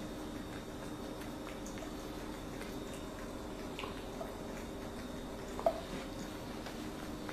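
A ragdoll cat eating wet food from a stainless steel bowl: small wet chewing and smacking sounds with scattered light clicks, and one sharper click a little over halfway through, over a steady low hum.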